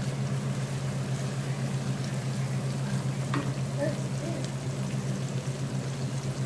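Browned onions sizzling in hot oil in a nonstick frying pan while a wooden spatula stirs them, with one sharp tap of the spatula on the pan about three seconds in. A steady low hum runs underneath.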